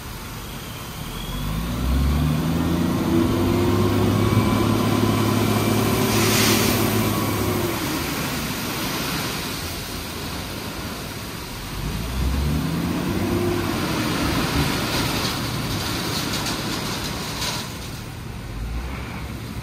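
Heavy diesel truck engine revving up twice, rising in pitch and holding: once about a second and a half in, and again about twelve seconds in. A brief hiss sounds about six seconds in.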